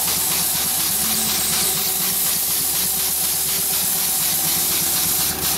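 Steam hissing steadily out of the open blowdown valves on the cylinder of a small Nat steam engine while it runs, with a faint quick pulsing of the engine's strokes through the hiss.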